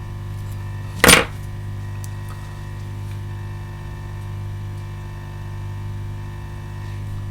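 Steady electrical hum on a repair bench, with one sharp tap about a second in.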